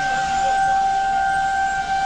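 Indian Railways WAP-4 electric locomotive's horn sounding one long, steady blast on a single pitch as the train passes.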